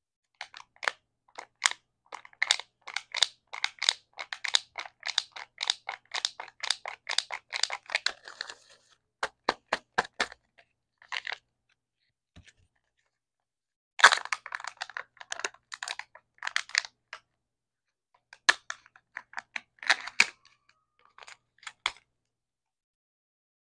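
Thin plastic Kinder Joy egg packaging and toy capsule crackling and clicking as they are handled and pried open: a quick run of crackles, about four or five a second, for the first several seconds, then scattered clusters of clicks with a sharp loud one about fourteen seconds in.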